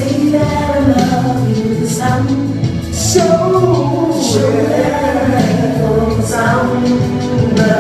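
Gospel song playing loud: voices singing together over a band with steady bass notes and regular cymbal-like hits.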